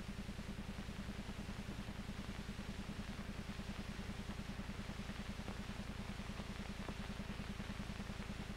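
Diesel locomotive engine running, a steady low throb with a fast, even pulse.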